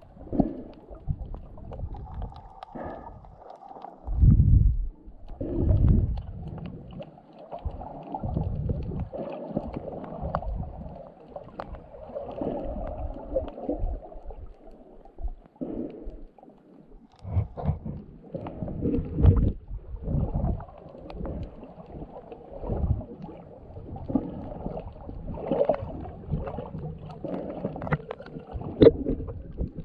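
Muffled underwater water movement heard through a submerged camera housing: dull sloshing and gurgling with irregular low thumps, the loudest two about four and six seconds in.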